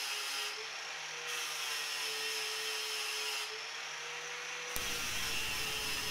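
Angle grinder running against the steel shell of a water-heater tank, grinding off the paint down to bare metal so the welder's earth clamp makes good contact. Its steady whine shifts slightly in pitch as the disc is pressed to the metal, with a click about five seconds in.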